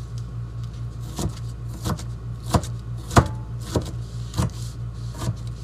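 Chef's knife chopping a red bell pepper on a paper plate on a countertop: seven sharp knocks, about one every two-thirds of a second, over a steady low hum.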